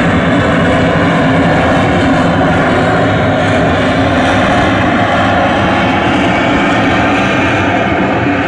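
Harrier jump jet's Rolls-Royce Pegasus turbofan running at high power in a hover, a loud, steady jet noise with whining tones running through it.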